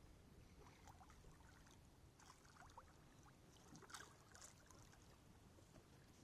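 Near silence, with a few faint water splashes from a hooked paddlefish rolling at the surface, the clearest about four seconds in.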